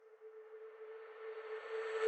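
Faint opening of background music: a single held tone under a soft hiss that swells gradually.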